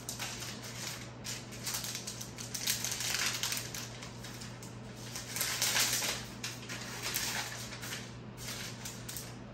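Thin plastic protective film being peeled off a new tablet and crumpled in the hands: irregular crinkling and rustling, loudest about three seconds in and again around six seconds.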